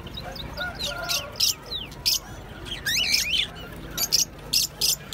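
Caged birds, cockatiels among them, chirping and calling: a run of sharp high chirps and short whistled up-and-down calls from several birds, over a low steady background hum.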